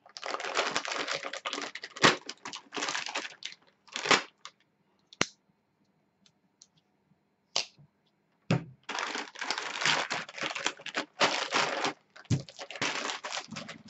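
Plastic bag crinkling and tearing as it is slit open with a folding knife, then more crinkling as plastic-wrapped bundles of wire connectors are pulled out and handled. A few sharp clicks and a short quiet spell fall in the middle.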